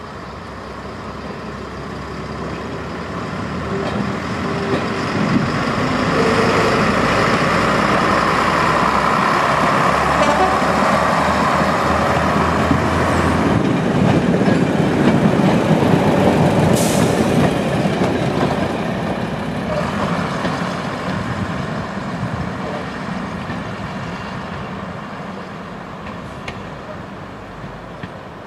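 A four-car British Rail Class 108 diesel multiple unit pulling away and passing close by: its underfloor diesel engines run under power, with wheel and rail noise. The sound grows louder over the first few seconds, stays loud while the cars go past, then fades steadily as the train moves off. A brief sharp high-pitched sound comes about two-thirds of the way through.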